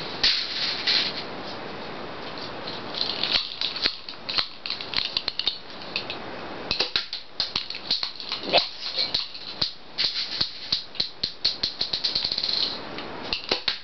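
Rapid, irregular plastic clicking and rattling as a homemade airsoft gun, built from a hand-pump Nerf gun, is handled and readied to shoot. The clicks grow quicker and denser over the last few seconds.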